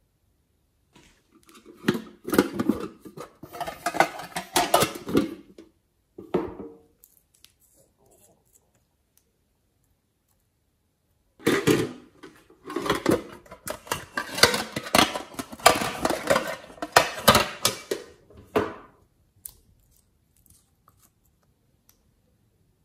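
Plastic toy packaging crinkling and crackling as it is handled and opened, in two long stretches with a quiet gap of a few seconds between them.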